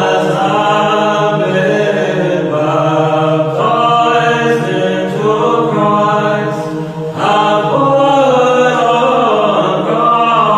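Choir singing Orthodox liturgical chant in harmony over a steady held low drone note, with a brief break about seven seconds in before the voices come back in.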